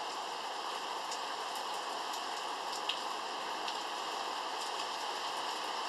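Steady rain falling, with scattered sharp drop ticks, one louder about three seconds in.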